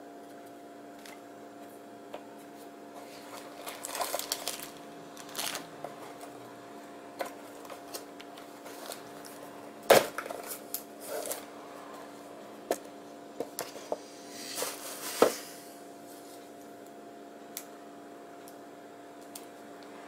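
Unboxing handling: a cardboard phone box and plastic-wrapped accessories rustle and knock, with scattered clicks. The loudest knocks come at about ten seconds and about fifteen seconds, over a steady low hum.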